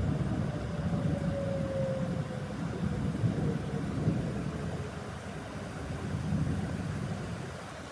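Federal Signal 2001 outdoor tornado warning siren winding down: one faint tone slowly falling in pitch and fading out about six seconds in, as the siren is switched off. A low, uneven rumble of noise lies underneath.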